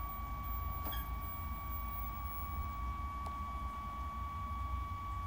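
A steady beep-like test tone of about 1 kHz from the speaker of a 1958 Admiral T21E21 tube TV, over a low hum, with a faint very high whine from the set's horizontal sweep.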